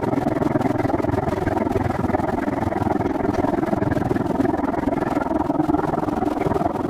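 Steady wind and riding noise on a camera carried on a moving bicycle, a constant rumble with no break.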